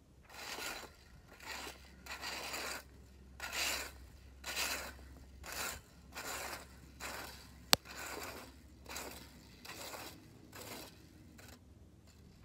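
Plastic leaf rake scraping through dry grass and dirt in repeated strokes, about one a second. A single sharp click about two-thirds of the way through is the loudest sound.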